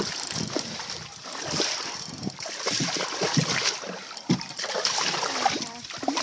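A redfish splashing repeatedly at the surface of shallow water, the splashes coming in irregular surges.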